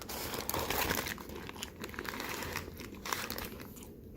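Paper taco wrapper crinkling and rustling as the taco is handled, densest in the first second, then thinning to scattered crackles.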